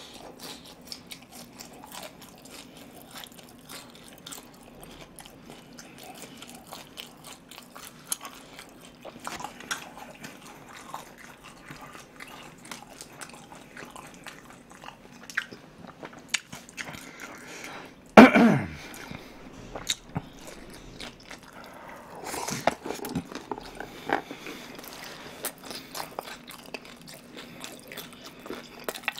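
Close-miked chewing and biting of guobaorou, Chinese sweet-and-sour pork in a crispy yet chewy glutinous-rice batter: many small wet clicks and crunches, with one louder sound about eighteen seconds in.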